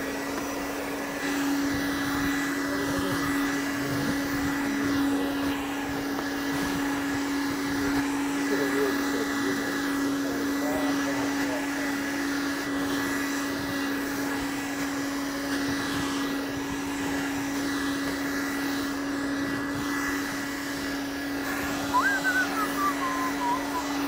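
Red cordless handheld vacuum cleaner running at a steady pitch, its nozzle sucking crumbs off carpet. About two seconds before the end, a person starts whistling a wavering tune over the motor.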